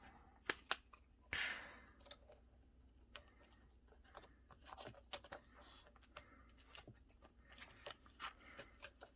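Faint crafting handling sounds: two light clicks, then a short rustle of card about a second and a half in, then scattered soft ticks, as a journal card is handled and punched with a Crop-A-Dile hole punch.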